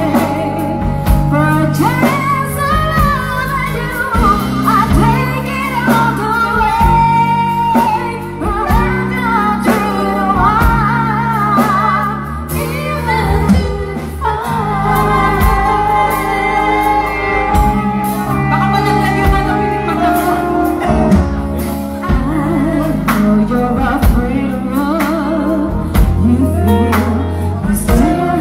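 Live band playing a ballad while two vocalists sing it as a duet, over electric guitar, keyboards, bass and drum kit.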